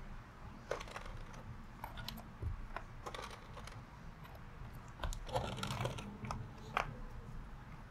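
Keycaps being pressed onto the switches of a Weikav D75 mechanical keyboard: irregular sharp plastic clicks and taps, coming more thickly about five seconds in.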